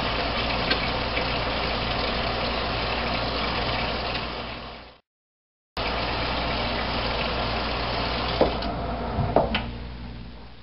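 Kitchen tap running steadily into a sink during hand washing, with a short dead gap about halfway. Near the end there are a few knocks as the taps are turned off, and the running water dies away.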